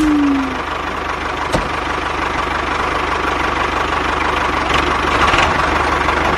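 Tractor engine idling steadily, with a fast, even low knock; one brief click about one and a half seconds in.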